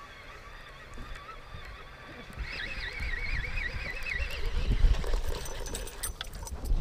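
Waterfowl calling in a long, wavering run of notes, loudest from about two and a half to four seconds in. Low rumble and scattered knocks build beneath it toward the end.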